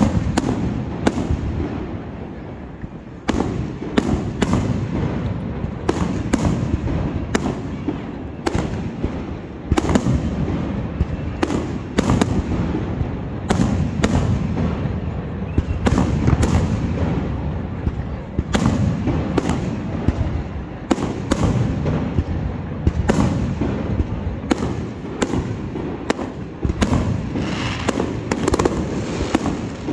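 Aerial fireworks display: shells bursting one after another, dozens of sharp bangs over a continuous low rumble of explosions.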